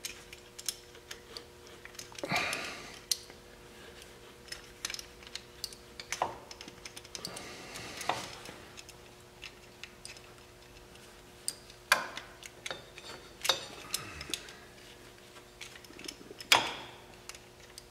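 Allen wrench working a bolt in by hand on an ATV front brake caliper: irregular small metal clicks and ticks, with a few brief scrapes.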